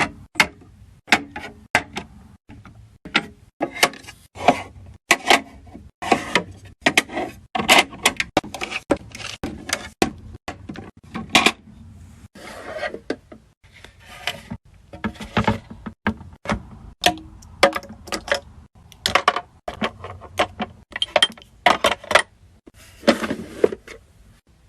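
Small skincare containers being handled and set down: a quick, irregular run of clicks, taps and clinks, with a few longer scraping or rustling sounds.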